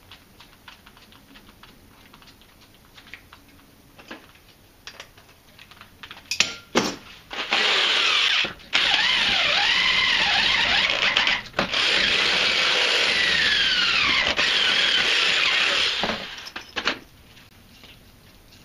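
Handheld power drill boring a hole through a solar panel's metal frame with a larger bit, its motor speed rising and falling as the trigger is eased, with two brief stops. Light clicks and handling noises come first, as the bit is fitted.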